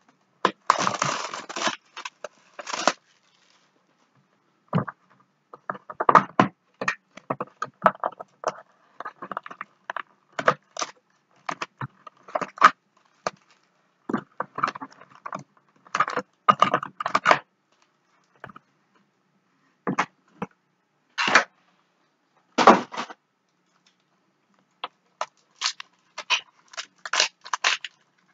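A box of trading-card packs being opened by hand: cardboard tearing and foil pack wrappers crinkling and rustling in many short, separate bursts.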